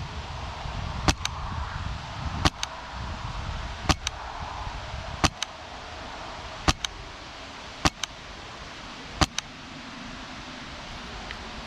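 PolarStar Kythera HPA airsoft rifle with a foam-filled silencer firing seven single shots, about one every second and a half. Each shot is a sharp click, most of them followed at once by a second, fainter click.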